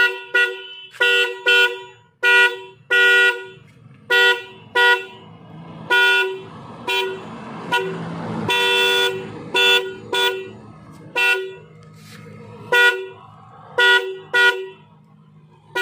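Electric windtone horn pair on a KTM motorcycle sounding about twenty times in quick succession, a steady two-note blare. Most presses are short toots and a few are held for about a second.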